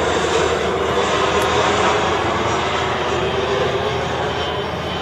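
Twin-engine jet airliner passing low overhead, its engines a loud steady rush of noise that slowly fades toward the end.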